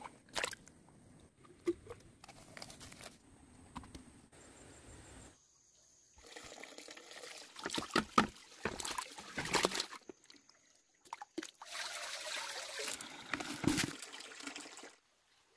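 A live fish splashing and thrashing in a bucket of water in irregular bursts, then a steady stream of water pouring into a basin as fish are rinsed and cleaned.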